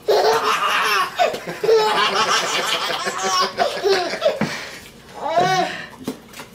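A baby laughing hard in long fits, with a short break about four and a half seconds in before one more laugh.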